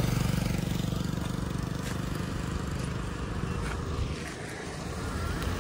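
A motor vehicle's engine running close by. It is loudest at the start and fades away over the next few seconds.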